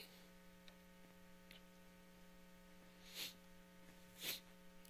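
Near silence: a steady electrical mains hum, with two short faint breaths about three and four seconds in.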